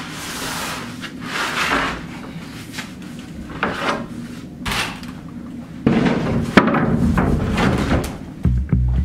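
Large lauan plywood sheet being slid out of a packed lumber rack: a series of scraping swishes as it rubs against the stacked boards, then louder wood-on-wood handling with a sharp knock about six and a half seconds in.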